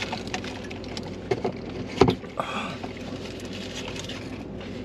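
Steady low rumble of a car's cabin, with a few short knocks and rustles; the loudest is a sharp one about two seconds in.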